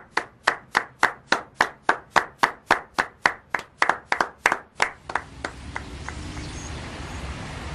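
Slow, even hand clapping, about three claps a second, fading out about five seconds in. A steady low background noise follows.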